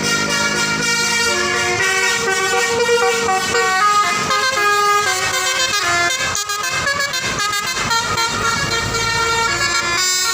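Basuri telolet multi-tone bus horn playing a tune: a run of held notes that step up and down in pitch.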